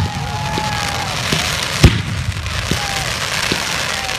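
Aerial firework shells going off: one loud sharp bang about two seconds in, with several fainter thumps of launches and distant bursts at uneven intervals.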